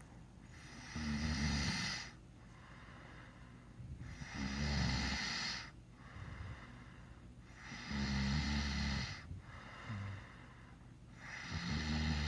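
A man snoring in his sleep: four snores about three and a half seconds apart, each a low rumble with a breathy hiss lasting a second or so, and quieter breathing between them.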